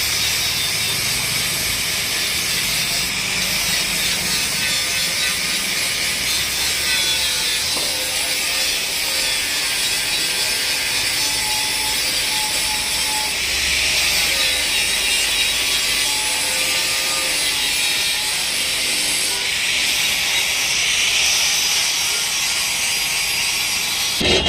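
Steady abrasive rubbing on an alloy wheel by a power tool, a continuous hiss-like sound with a faint wavering tone beneath it.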